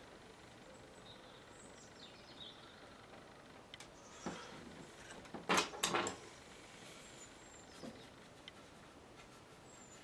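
Faint scratching and dabbing of a watercolour brush, with a short cluster of louder strokes about five and a half seconds in.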